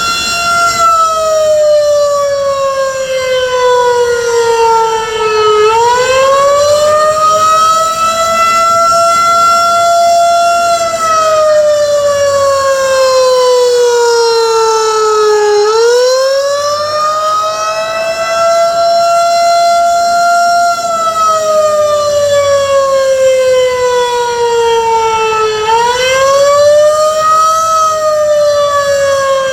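Federal Signal 2001-130 electromechanical outdoor warning siren sounding a test. Its loud tone slides slowly down in pitch over about five seconds, swings quickly back up and holds, repeating about every ten seconds.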